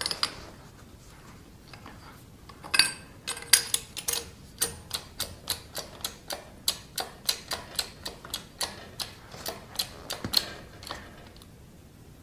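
Hydraulic bottle jack being hand-pumped: the steel handle clicks and rattles in its socket with each stroke, about three strokes a second, starting about three seconds in and stopping near the end.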